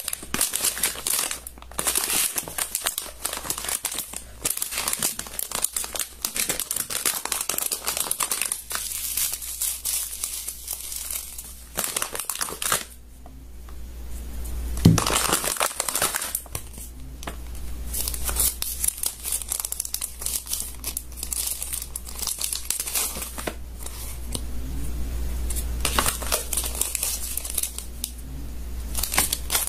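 Slime being squeezed, poked and stretched by hand, giving dense crackling and crinkling pops, with a steady low hum beneath and one brief louder knock about fifteen seconds in.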